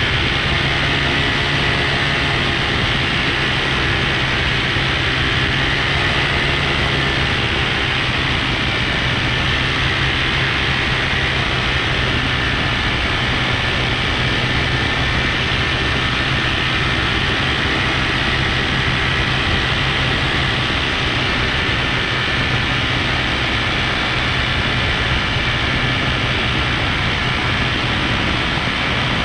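Paramotor engine and propeller running steadily in cruising flight, an unchanging drone with a low hum, mixed with wind rushing over the microphone.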